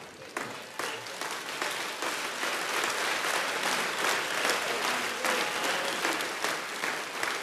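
Large church congregation applauding, building up over the first second and then holding steady as a dense patter of many hands clapping.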